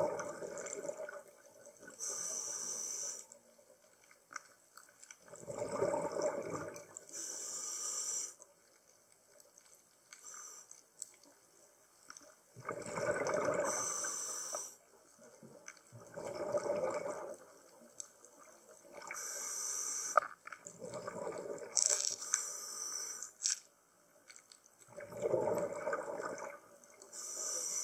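A scuba diver breathing through a regulator underwater. Rushes of exhaled bubbles alternate with the hiss of each inhalation, over several breaths.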